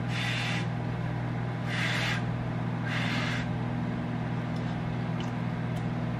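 Microwave oven running with a steady electrical hum while it heats rice. Three short hissing noises of about half a second each come in the first three and a half seconds.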